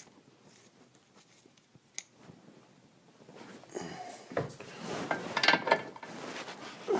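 Quiet handling at first with a single click about two seconds in, then irregular clatter, light metallic clinks and rubbing from about four seconds on as the new ball joint and its parts are handled.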